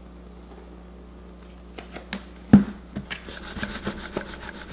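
Lidded plastic batter bowl being handled on a countertop: a couple of light knocks, then a loud thump about two and a half seconds in as it is set down, followed by a fast scraping rattle as it is turned and rocked with the battered onion inside.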